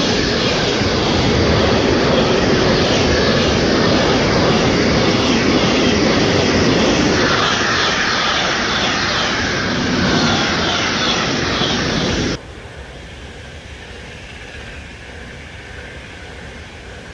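Freight train's container wagons rolling past close by: loud, steady wheel and rail noise with faint regular clicks. About twelve seconds in it cuts off abruptly to the quieter, steady noise of a Frecciarossa high-speed train passing.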